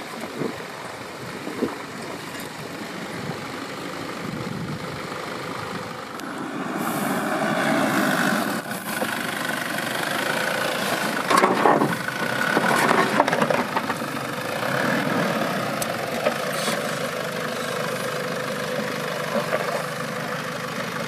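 An off-road 4x4's engine running as it is driven slowly over rough ground. It grows louder from about seven seconds in, with a few sharp knocks a little past the middle.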